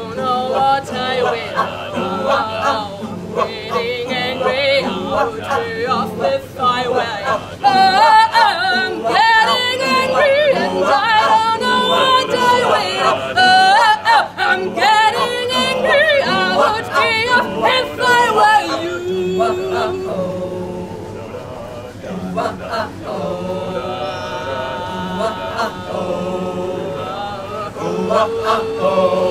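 Mixed group of men and women singing a cappella in harmony, with a woman's voice leading over the others. A softer, more held passage comes about two-thirds of the way in before the voices swell again.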